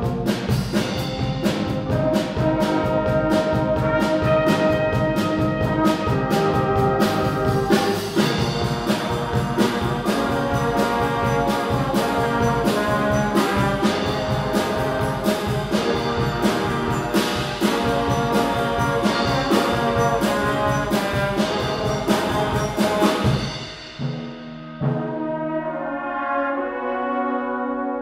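Youth brass band playing together, with horns, trumpets and trombones over a steady percussion beat. About 23 seconds in the percussion stops and the band goes on more softly with held chords.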